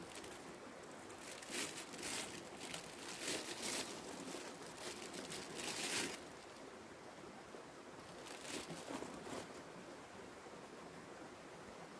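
Irregular crunching and rustling over a steady faint hiss, in a long stretch from about a second in to about six seconds and again briefly around nine seconds.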